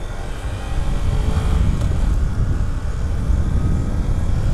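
Riding on a Honda Grom 125 motorcycle: a heavy rumble of wind on the microphone over the small single-cylinder engine, growing louder about a second in as the bike picks up speed.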